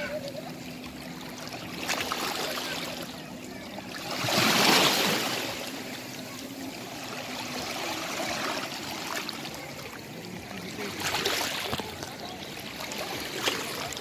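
Small sea waves washing in over shoreline rocks and seaweed, rising to a rush and falling back every two to three seconds, the biggest surge about five seconds in.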